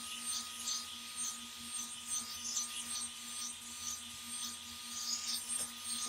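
Revlon One-Step hot air brush running steadily: a motor hum with a constant whine under a rush of air, which rustles and swells unevenly as the bristled barrel is pulled through the hair.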